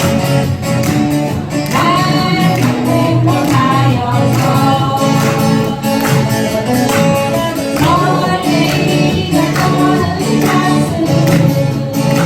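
Strummed acoustic guitars accompanying a sung song.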